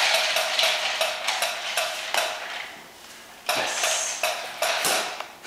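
A quick run of light clattering clicks and taps that fades over the first few seconds, then two sharper knocks, about three and a half and five seconds in.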